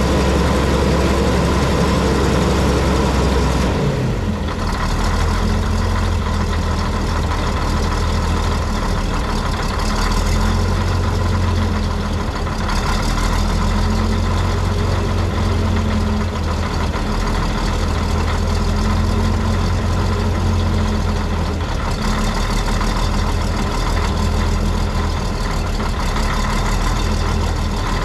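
Cat D6 bulldozer's diesel engine running, its speed dropping about four seconds in, then rising and easing off again several times.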